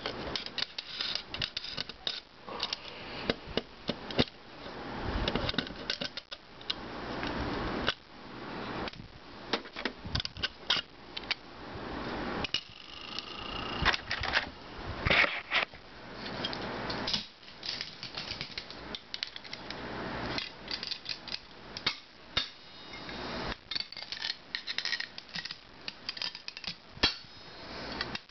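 Irregular clicks, taps and metal scrapes from an old hard drive being taken apart: a small screwdriver working the screws at the platter hub and the metal platter and parts being handled. A short squeak comes about halfway through.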